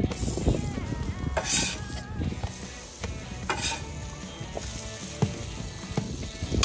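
Cinnamon rolls sizzling on a hot flat-top griddle, with a metal spatula scraping across the steel surface a couple of times.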